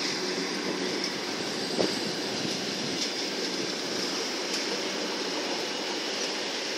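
Freight train of tank cars rolling past on the adjacent track: a steady noise of wheels on rails with a few faint clicks.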